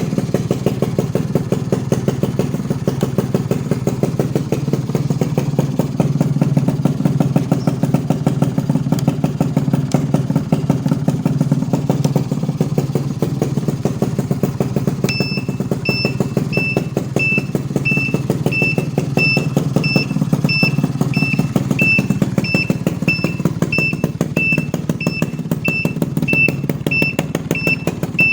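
Yamaha Alfa's small two-stroke motorcycle engine idling steadily with a fast, even beat. About halfway through, a high electronic beep starts repeating a little under twice a second.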